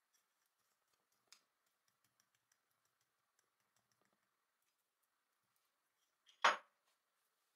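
Faint crackling of enamel-coated copper winding wire burning on a steel block, with a single sharp metallic tap near the end as the screwdriver tip knocks against the block.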